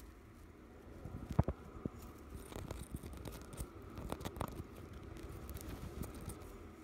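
Irregular taps, knocks and scratchy rustles right against the microphone, as a hamster noses and paws at the phone filming it, with bits of bedding rustling.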